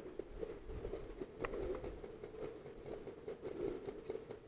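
Footsteps and rustling of clothing and gear as a person walks through grass, with a few sharp clicks, the strongest about one and a half seconds in.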